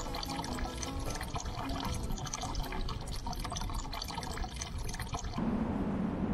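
Water running and splashing, like a tap or a spring spout. About five seconds in it changes abruptly to a steadier, lower rushing noise.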